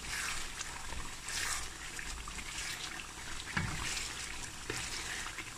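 Chicken pieces frying in tomato masala, sizzling and bubbling, while a wooden spatula stirs through them in repeated swishing strokes.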